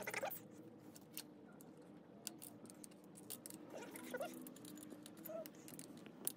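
Faint scattered clicks and light scraping of hand work on a Brompton folding bike's stem catcher, as its bolt and small parts are taken off.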